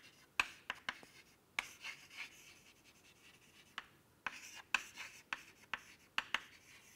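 Chalk writing on a chalkboard: a scatter of short taps and brief scratches as the letters are written, with a quieter stretch around the middle.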